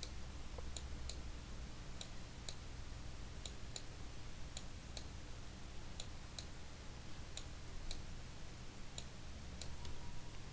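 Computer mouse clicking: short, sharp clicks at irregular intervals, roughly one or two a second, over a faint steady low hum.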